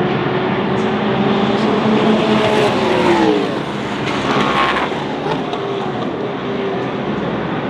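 Sports-prototype and GT race cars passing at speed. One engine's note drops in pitch as it goes by about three seconds in, and another high-revving engine follows right after.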